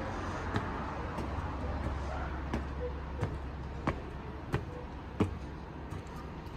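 Steady low outdoor rumble, with a run of short, sharp clicks about every two-thirds of a second.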